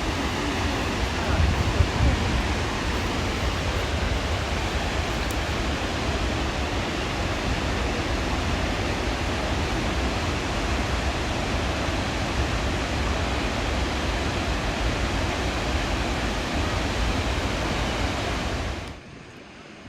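Harajiri Falls, a wide curtain waterfall, giving a steady rushing roar of falling water, which drops away abruptly near the end.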